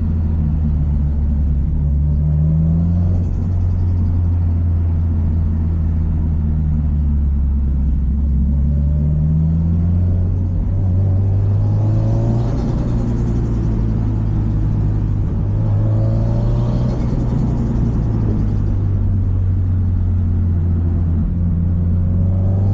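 Subaru Impreza WRX STI's EJ207 turbocharged 2.0-litre flat-four running hard, its pitch rising several times as it accelerates and dropping back between pulls.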